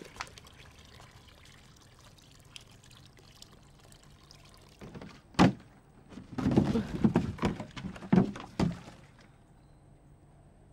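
Water pouring faintly from a plastic jerry can into a jar. About five seconds in there is one sharp hollow thunk, then a few seconds of louder bumps and knocks.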